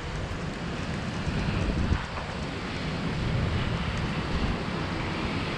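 Wind gusting across the microphone, a steady rushing noise with low buffeting rumble.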